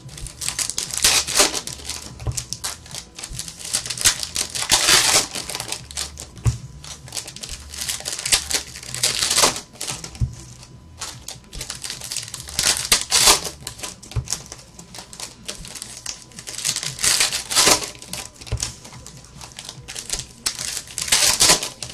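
Baseball card pack wrappers crinkling as they are opened, with the cards clicking and rustling as they are handled and flicked through. Louder bursts of crinkling come about every four seconds.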